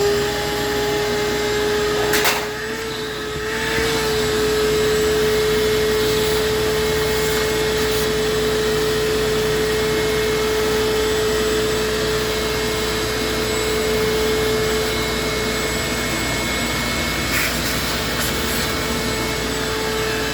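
Vacuum cleaner running steadily with a constant whine, sucking dust out of a refrigerator's condenser coil, with a brief knock about two seconds in.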